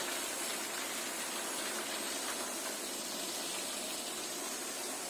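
Steady hiss of air rushing past a phone microphone held while riding a bicycle.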